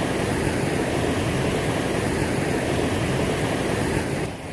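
Steady rushing of creek water running over rocks, dipping briefly near the end.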